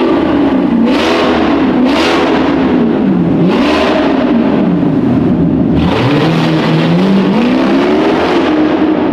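Maserati GranTurismo's Ferrari-derived V8 with a deleted exhaust, revved three times, each rev rising and falling back quickly. Near the end the revs climb more slowly as the car pulls away, in a concrete parking garage.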